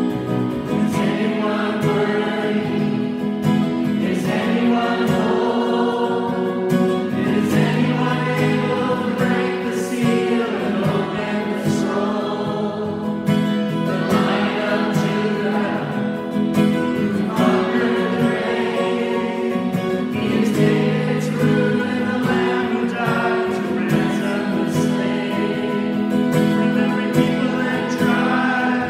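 Congregational hymn singing: a man and a woman lead the song into microphones over a strummed acoustic guitar, with the voices of the congregation joining in.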